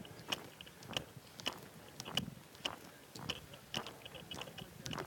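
Footsteps crunching on a volcanic cinder trail at a steady walking pace, about two steps a second.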